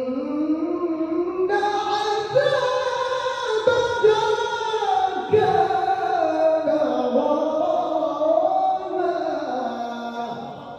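A man's voice reciting the Qur'an in the melodic tilawah style: long held notes, ornamented with glides up and down. The voice fades away near the end.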